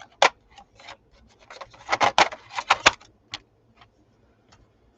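Small clicks and rattles of wooden colored pencils and their trays being handled, thickest about two to three seconds in.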